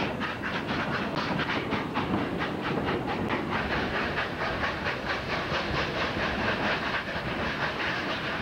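Narrow-gauge steam locomotive working its train, its exhaust chuffing in a quick, even rhythm of about six beats a second, over the steady rumble of the cars' wheels on the rails.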